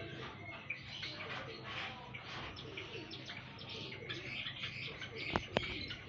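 A flock of Java sparrows chirping and twittering in short, busy calls, with low cooing beneath them. Two sharp clicks near the end.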